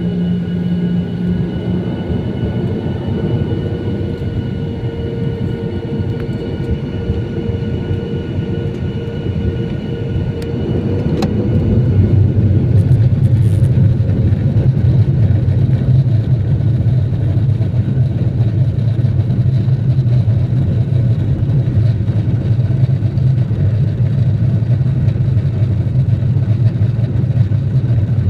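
Airbus airliner's jet engines and airframe rumbling steadily, growing louder and deeper about eleven seconds in as the aircraft gets going for takeoff.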